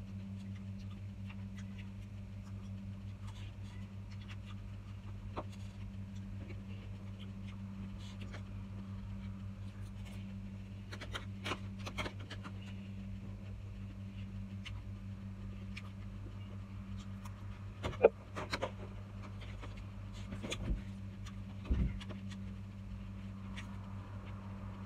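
A steady low hum, with scattered light clicks and knocks of a metal spoon against plastic bowls while eating. The sharpest knock comes about eighteen seconds in.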